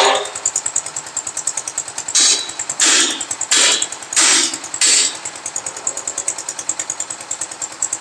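Concrete mixer's stationary engine running with a fast, even chugging of about eight beats a second, broken by five louder hissing surges in the middle.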